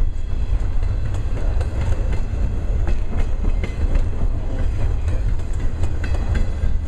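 Double-stack intermodal container well cars rolling past: a steady heavy rumble with irregular wheel clicks over the rails.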